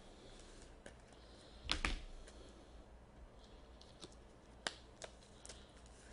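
Scattered computer keyboard and mouse clicks at a desk, with a louder clatter of a few clicks and a light thump about two seconds in.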